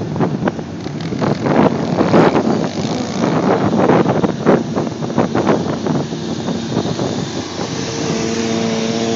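Sport motorcycle engines running and revving, with wind buffeting the microphone in uneven surges. About eight seconds in, a motorcycle close by settles into a steady engine note.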